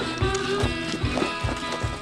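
Music: a song with a steady drum beat under a held melody line.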